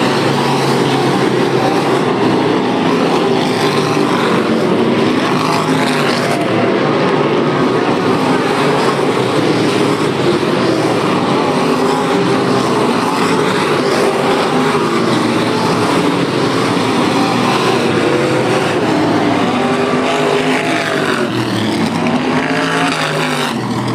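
A pack of IMCA Sportmod dirt-track race cars running laps, several V8 engines at once, their notes rising and falling as the cars go through the turns and down the straights.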